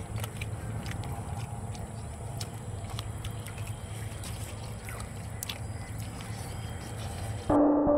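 Steady low rumble of background noise with scattered light clicks and a faint steady high tone. Synthesizer background music comes in near the end.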